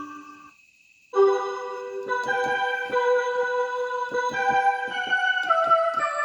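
Synthesizer keyboard patch with an electric-piano and organ tone, played on a Korg M1. A held chord dies away, and after a short gap a new chord enters about a second in, with a melody of sustained notes over it and a light rhythmic pulse underneath.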